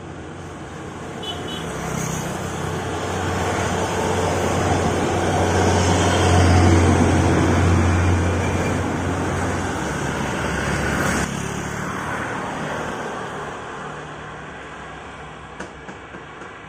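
Road traffic passing close by: a minibus and a tanker truck go by, their engines' low drone and tyre noise building to a peak in the middle and then fading away.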